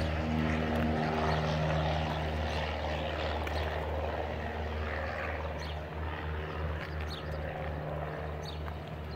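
A steady, low engine drone that slowly fades and becomes uneven in the second half.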